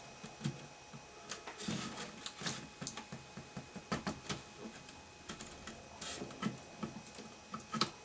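Irregular light clicks and taps of hands handling and pressing on a flat-screen TV's circuit boards inside its opened back.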